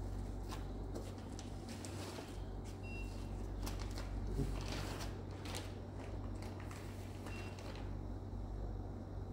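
Two short high beeps from the ultrasound machine's console as its keys are pressed, about three seconds in and again near the end, among light clicks and paper and packaging rustle over a steady low hum.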